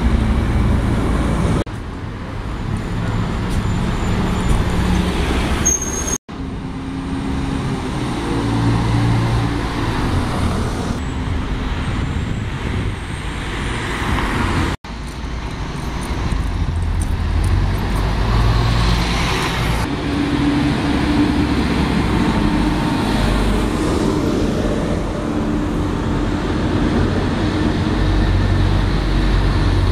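Double-decker buses and cars driving past on a city street: bus engines running and tyre noise, steady throughout. The sound breaks off abruptly twice, about six and fifteen seconds in.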